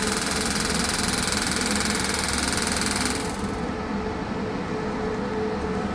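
Pulsed magnetic therapy machine running a treatment: a rapid, even mechanical pulsing over a steady hum. A bright hiss over it cuts off about three seconds in.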